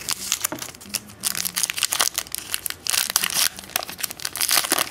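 Foil wrapper of a Contenders football card pack crinkling and being torn open by hand, a dense run of irregular crackles.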